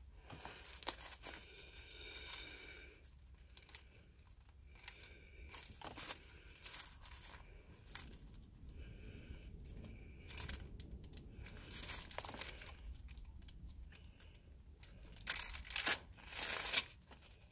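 Thin Bible pages being turned and rustled: scattered soft crinkles and swishes, with two louder page flips near the end.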